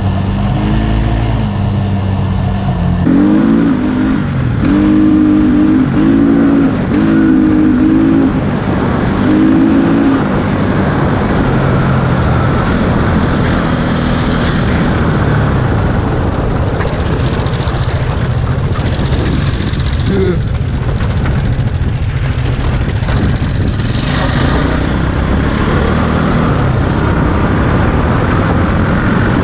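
A mini bike's small engine running under way: its pitch rises and falls with the throttle for several seconds, then settles into a steadier run under wind and road noise. Before that, a kart engine runs for about the first three seconds.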